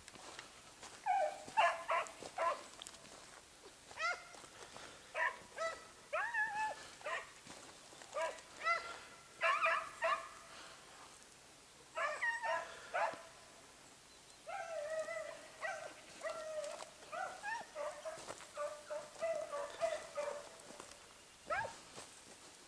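Pack of Basset Fauve de Bretagne scent hounds giving tongue, baying in repeated bursts of high calls with several voices at once, as they work the scent trail of a rabbit.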